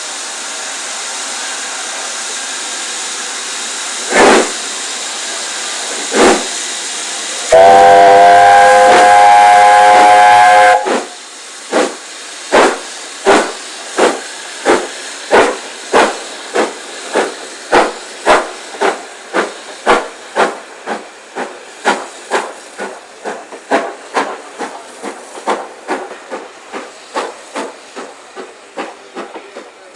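Steam locomotive starting away: a steady hiss of steam escaping around its cylinders with two single exhaust chuffs, then its steam whistle sounding loud for about three seconds. The exhaust beats then begin in a regular rhythm and come steadily faster as the engine gathers speed.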